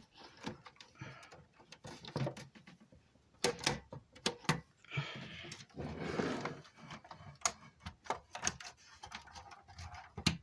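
Plastic front grille of a desktop PC case being worked onto the case by hand: scattered clicks and knocks of plastic against the chassis, with a longer scraping rustle about five seconds in.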